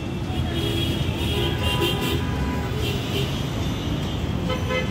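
Busy city street traffic: a steady rumble of engines and tyres with short horn toots sounding over it.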